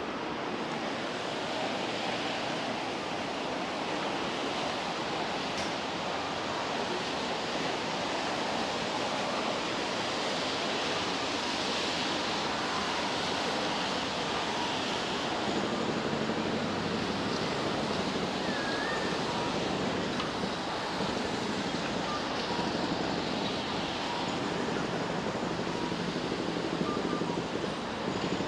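Steady ambient wash of a busy shopping area, an even blur of indistinct background sound with no clear single event.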